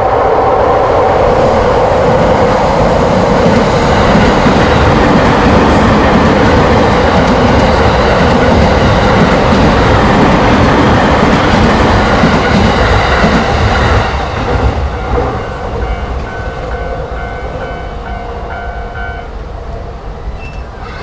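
Electric train passing close by over a level crossing, a loud rush of wheels on rail that drops off suddenly about two-thirds of the way in. The crossing's warning alarm rings on as the train recedes and stops near the end.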